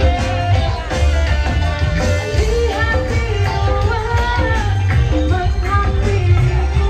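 Kecimol street-band music played loud over amplifiers: a heavy low drum beat under guitar and a singer's melody.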